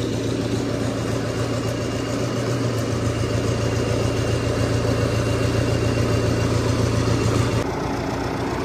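Indo Farm tractor's diesel engine running steadily at an even speed. Its sound changes abruptly near the end.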